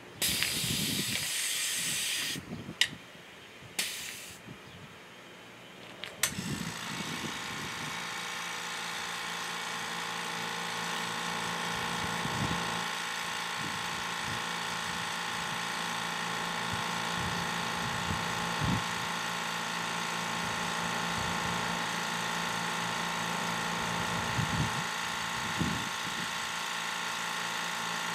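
A short burst of air hissing and a couple of clicks at the tire chuck. About six seconds in, the Fortress 2-gallon, 1.2-horsepower air compressor's motor starts and runs steadily while it airs up a tire.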